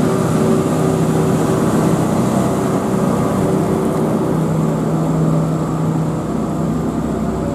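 Diesel engine of a Hitachi EG70R crawler carrier running steadily under load as the machine drives on its tracks through the river, its low hum growing stronger about halfway through.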